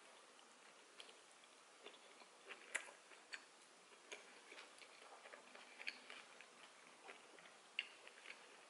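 Quiet close-miked chewing of a pizza slice: faint, irregular mouth clicks over a low hiss, the loudest click about three seconds in.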